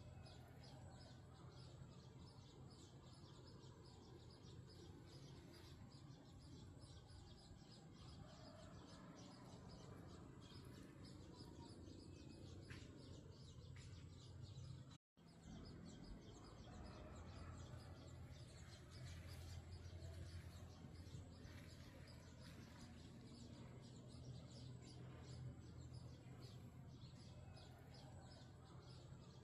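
Faint chirping of small birds, rapid short chirps over a steady low hum. The sound cuts out completely for a moment about halfway through.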